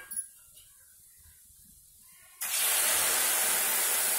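A steady hiss that starts suddenly about two and a half seconds in, after a quiet stretch.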